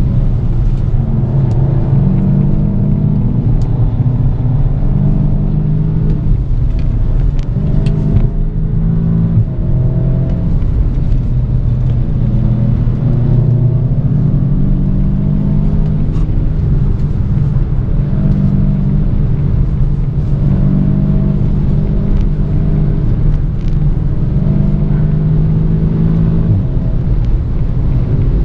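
Audi S3 8V's ABT-tuned 2.0-litre turbocharged four-cylinder pulling hard at high revs, heard inside the cabin. The engine note climbs and drops back repeatedly with gear changes of the DSG gearbox and lifts of the throttle.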